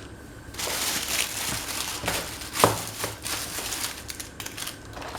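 Packaging rustling and crinkling as it is handled, with a sharp click about two and a half seconds in.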